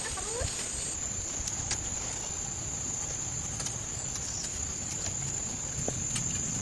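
Insects, likely crickets or cicadas, chirring in a steady high-pitched drone, with a few faint ticks over a low background rumble.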